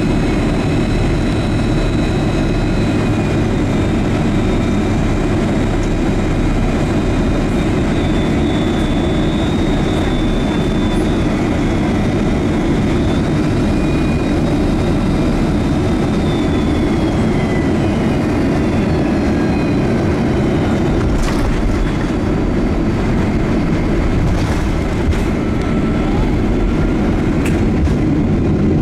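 Cabin noise of a Boeing 767-200 as it touches down and rolls out on the runway: a steady, loud jet roar. Thin whining tones fall in pitch a little past halfway as the airliner slows.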